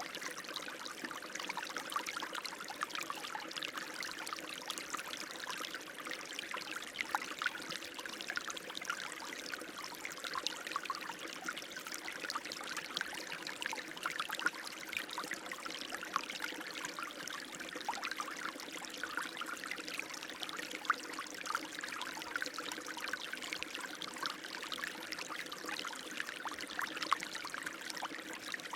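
Running water, a steady stream trickling and pouring with many small splashes.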